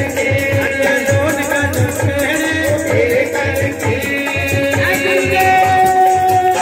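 Live Punjabi Mata Rani bhajan: singing over a steady hand-drum beat of about three strokes a second, with jingling percussion and a long held note from about five seconds in.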